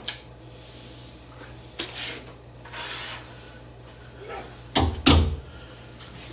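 Rustling and scraping of packaging and parts being handled from a box, with several short scuffs, then two loud, heavy thumps about five seconds in.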